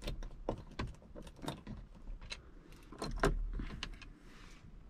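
Small clicks and light metallic clinks from a T10 Torx driver working two screws out of a truck's overhead console trim, with a short scraping stretch about three seconds in.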